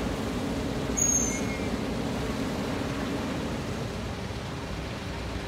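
Sany crawler excavator's diesel engine running steadily, with a brief high squeak about a second in.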